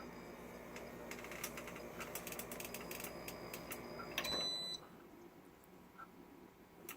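Corona CD-P63A2W dehumidifier running with a steady hum and a faint high-pitched whine, cricket-like, that is the fault of this new unit, with rapid ticking clicks from about a second in. About four seconds in a short electronic beep sounds as it is switched off, and the hum stops.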